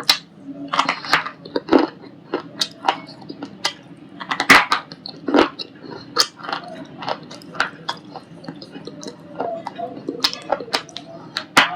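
Person chewing white shale stone, with many sharp, irregular crunches one after another.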